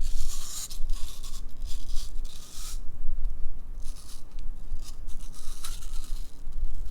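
Teeth biting and scraping into the side of a raw apple: a few irregular crunchy, scraping bursts over a steady low rumble.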